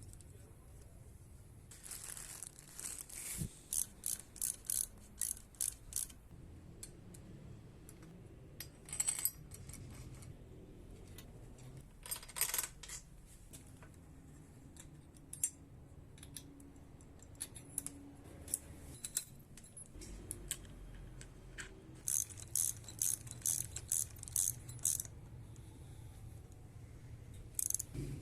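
Small metal parts clicking and clinking in quick runs of light taps, with two short hissing or scraping noises in between.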